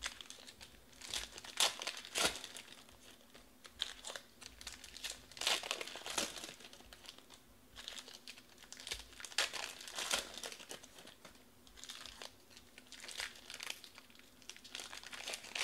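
Foil trading-card pack wrappers crinkling in irregular bursts as they are handled and torn open, with cards being shuffled between the bursts.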